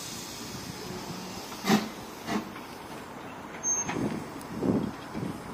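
Small 0-6-0 saddle-tank steam locomotive moving off slowly. A hiss dies away in the first second, then four slow, unevenly spaced exhaust chuffs follow, starting about a second and a half in.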